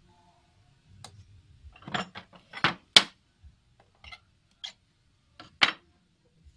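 Irregular sharp clicks and knocks of small wooden parts of a handmade wooden ox-cart model being handled, fitted and set down on a wooden table. They cluster about two to three seconds in, and there is another loud knock near the end.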